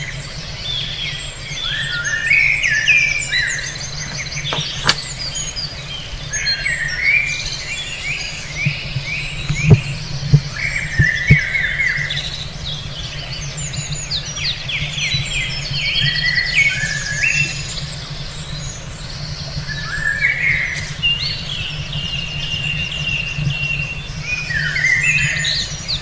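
Several small songbirds chirping and trilling over one another, with quick runs of repeated notes, over a steady low hum. A few short knocks come about ten seconds in.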